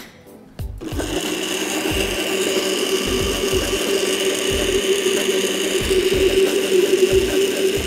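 Countertop blender motor switched on about a second in, then running steadily at low speed, churning a runny garlic and egg mixture.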